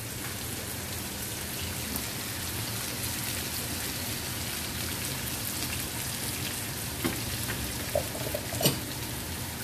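Minced garlic and chili flakes frying in hot oil in a small nonstick pan, a steady crackling sizzle; a few light knocks near the end as the pan is moved on the grate.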